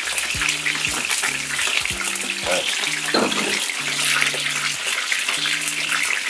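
Starch-coated chicken pieces shallow-frying in oil in a frying pan: a steady, crackling sizzle.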